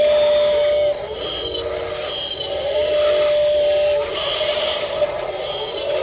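Electric gear motors of a Huina RC wheel loader whining as the bucket and arms are worked. The whine is held for a second or so, then drops away and comes back, in stop-start spurts.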